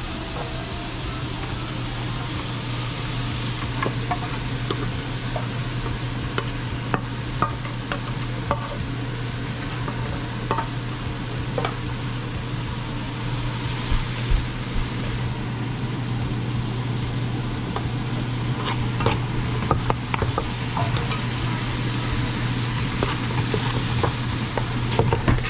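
Onions and garlic sizzling in hot oil in a pot, being fried down and stirred, with a spoon clicking against the pot now and then. A steady low hum runs underneath.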